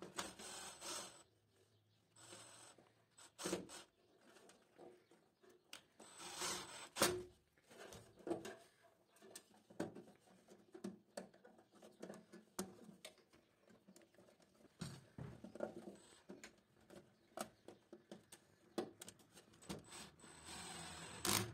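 Cordless drill-driver running in short bursts as it drives the terminal screws of a circuit breaker, near the start and again near the end. In between, light clicks and rustles of wires and screws being handled.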